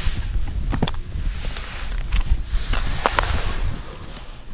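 Wind buffeting the microphone in a steady low rumble, with a handful of short knocks and clicks from handling gear on the ice.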